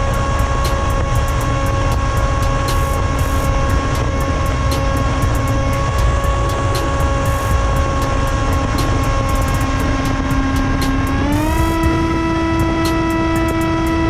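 Electric motor and propeller of an FPV flying wing whining steadily in flight, stepping up in pitch about eleven seconds in as the throttle rises. Heavy wind rumble on the onboard microphone runs under it.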